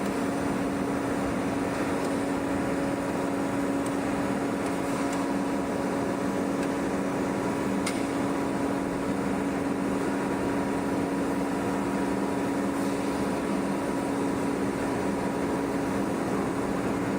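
Steady hum of heavy machinery: a constant low drone with a few steady tones over a wash of noise, unchanging in level throughout.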